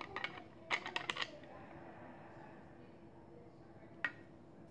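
A few sharp clicks and taps of hard objects being handled: one at the start, a short cluster about a second in, and one more near the end, over a faint low hum.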